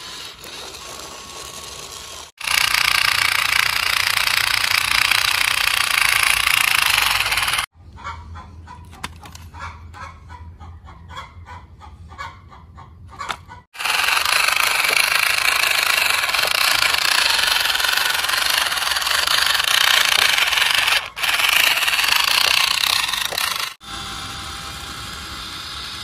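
Small electric motors and plastic gearboxes of RC toy vehicles running, a loud buzzing rattle, in several short clips cut together. A quieter stretch in the middle holds rapid clicking.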